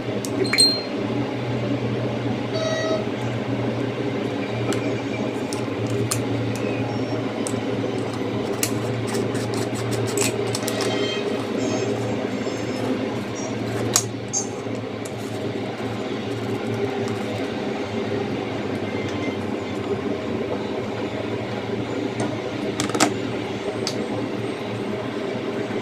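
Steady low hum made of several held tones, like a motor or electrical hum, with scattered light clicks and taps of small plastic parts being handled.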